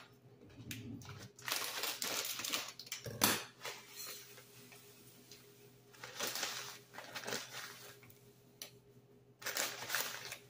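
Crinkling of a plastic bag of panko breadcrumbs as the crumbs are shaken and poured out into a bowl, in several bursts with short pauses between.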